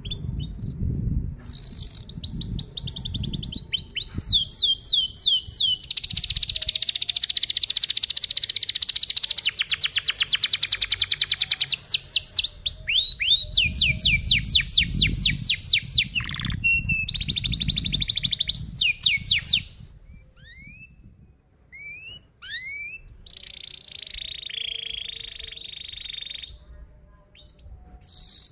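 Domestic canary singing a long song of tight rolls: fast runs of repeated notes, many falling in pitch, loud for most of the first twenty seconds. After that the song turns softer, with a few single rising chirps and then a lower, buzzy roll.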